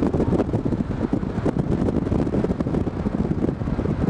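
Wind buffeting the microphone of a camera filming from a moving car, over the car's steady road and engine noise.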